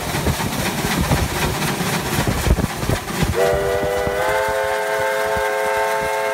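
Steam locomotive 3016 working hard, its exhaust chuffing. About three and a half seconds in, its steam whistle sounds one long blast with several tones together, held to the end.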